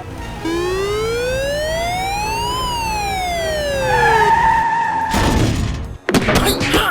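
Police-style siren wail: a single slow sweep rising for about two seconds and falling back, then a brief steady tone, followed by a burst of noise and busier clattering sound near the end.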